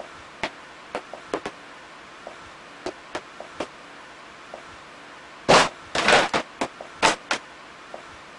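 Steady recording hiss with scattered light knocks and clicks, and a cluster of louder rustling thumps between about five and a half and seven and a half seconds in.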